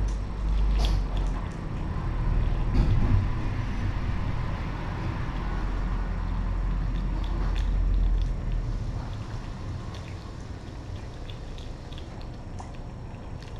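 Cats eating wet food from a plate: small wet chewing and licking smacks, scattered irregularly over a steady low rumble.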